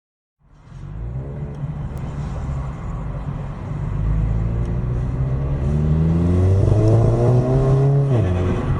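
2017 VW GTI's turbocharged 2.0-litre four-cylinder engine pulling under acceleration, its pitch climbing steadily and growing louder, then falling suddenly near the end.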